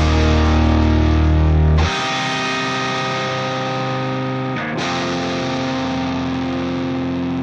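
Rock music with distorted electric guitar playing held chords. The heavy bass drops out about two seconds in, leaving the guitar alone, and the chord changes once more later on.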